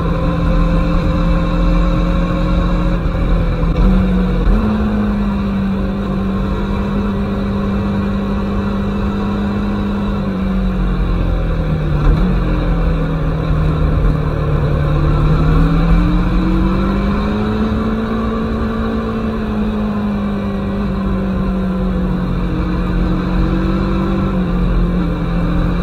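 Aprilia Tuono motorcycle engine running at speed over wind rush. The engine note steps up about four seconds in, falls away around twelve seconds, then climbs back and settles again.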